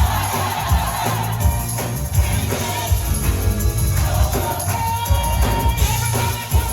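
Live gospel music: a choir singing over a band with bass, drums and tambourine keeping a steady beat.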